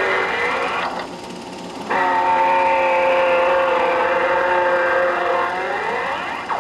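Racing sports car engines going past at speed. One car's sound cuts off about a second in, and another starts suddenly a second later and runs steadily before its pitch drops sharply as it passes near the end.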